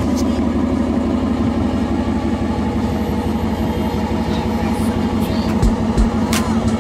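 Ram 1500 pickup's 5.7 Hemi V8 idling steadily, with a few light clicks near the end.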